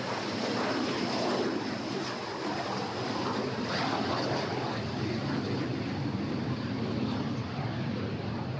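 Aero L-39 Albatros jet trainer's turbofan engine at takeoff power as the jet rolls and lifts off: a steady rush of jet noise with a thin high whine held throughout.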